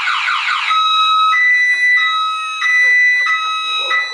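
Electronic alarm siren of a portable pepper-spray alarm system, triggered by an intruder. It sounds as a fast repeating warble that, a little under a second in, switches to a two-tone alternation between a lower and a higher note changing about every two-thirds of a second.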